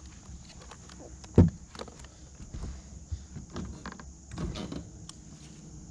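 Knocks and thumps on a fishing boat's deck as someone moves about on it, with one sharp knock about one and a half seconds in and softer knocks and rustling after.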